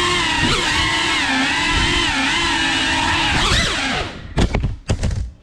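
Cinewhoop FPV drone's propeller motors whining, the pitch rising and falling as the throttle changes. About four seconds in the motors cut in and out in short bursts, then drop almost to silence near the end.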